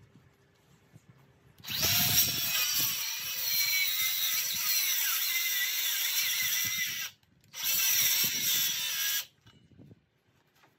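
Cordless circular saw cutting into a 6x6 timber post, making kerf cuts for a half lap joint: one long cut of about five seconds starting about one and a half seconds in, then a brief pause and a shorter cut of under two seconds.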